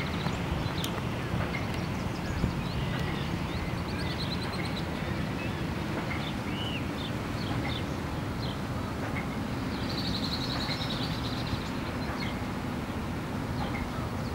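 Tree swallow calling: scattered short, high chirps, then a quick run of twittering notes about ten seconds in. A steady low background rumble underlies it.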